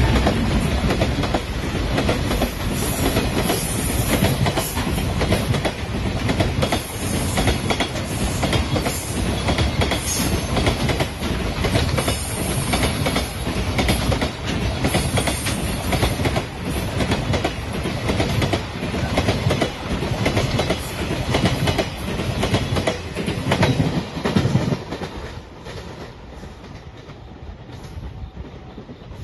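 Freight train of container wagons rolling past, its wheels clattering over the rail joints in a steady clickety-clack. The sound falls away abruptly about 25 seconds in as the last wagon passes.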